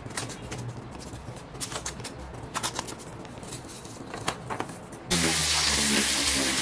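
Thin plywood strips being wiped and handled on a workbench, with light wooden clacks and rubbing. About five seconds in, an electric orbital sander starts suddenly and runs steadily, sanding the plywood.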